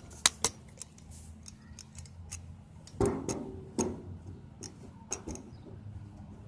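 Handling noise of a handheld phone: scattered light clicks and taps, with two louder knocks about three and four seconds in.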